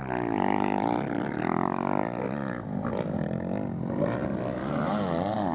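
Motocross bike engines revving hard through a dirt corner, the pitch rising and falling again and again with the throttle as a bike passes close by.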